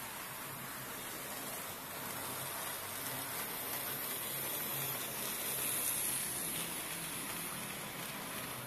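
Model BR 64 tank locomotive and its train running along the model railway track: a steady rushing noise of the small motor and wheels on the rails. It grows louder as the train passes close, peaking about six seconds in, then eases off a little.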